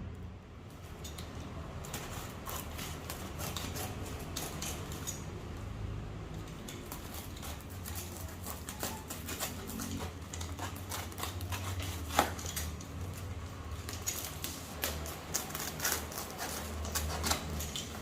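Packaging being handled during an unboxing: a run of irregular small clicks, taps and rustles, with one sharper knock about twelve seconds in.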